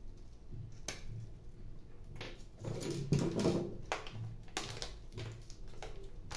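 Hands handling and unclipping small plastic parts of a toner cartridge: several sharp plastic clicks, with a louder scraping, rattling stretch about three seconds in.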